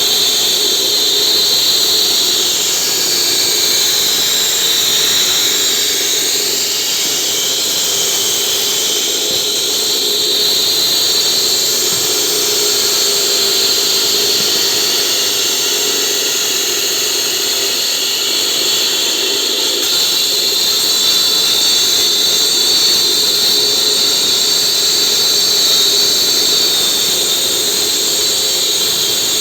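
16-inch concrete cutting saw running, a loud, steady high-pitched whine with hiss from the spinning blade; the pitch sags slightly a few seconds in, then holds.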